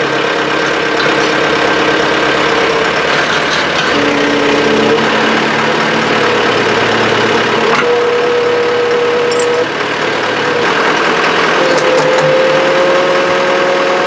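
Cat 426 backhoe's diesel engine running under load while its hydraulics swing and lower a 3,700-pound concrete block. A steady whine sits over the engine noise and steps up in pitch a few times.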